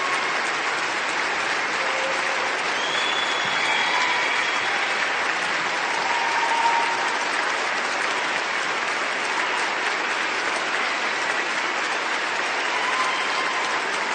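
Continuous applause from a large audience: many hands clapping at once into a dense, even wash of sound that holds steady throughout, with a few faint brief tones from the crowd showing through.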